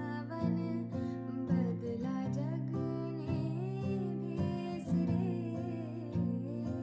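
Background music: acoustic guitar with a steady bass line and a gliding melody, possibly with a voice.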